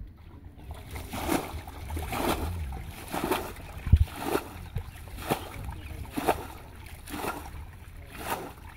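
Muddy water being bailed out by hand with a metal bowl, a splash about once a second as each scoop is thrown. A heavier thump about four seconds in is the loudest sound.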